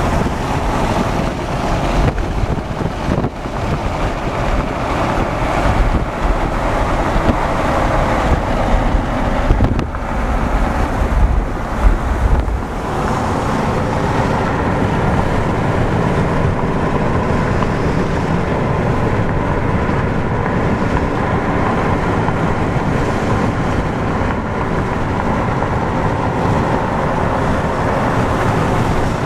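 Car driving on a paved road, heard from inside the cabin as a steady rush of road and wind noise. Uneven low gusts of wind buffet the microphone for roughly the first dozen seconds, then the noise settles.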